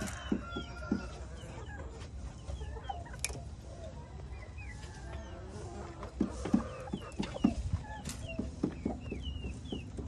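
A flock of backyard hens clucking: short, low clucks scattered throughout, coming thicker in the second half, with small high chirps mixed in.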